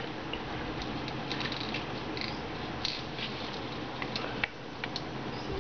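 Small clicks and taps of a Samsung Champ touchscreen phone being turned over in the hand, over a steady background hiss.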